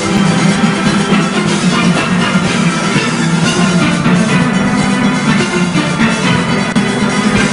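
A full steelband playing at a fast, driving tempo: massed steel pans carrying the melody and chords over deep bass pans, with drum-kit and percussion keeping the beat.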